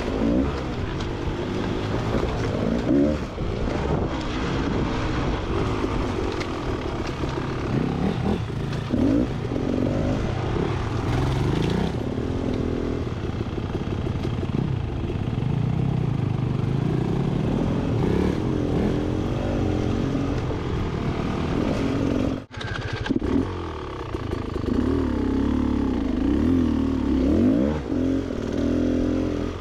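Beta XTrainer 300 two-stroke single-cylinder dirt bike engine being ridden off-road, its pitch rising and falling constantly as the throttle is worked. The sound cuts out for a moment about three-quarters of the way through.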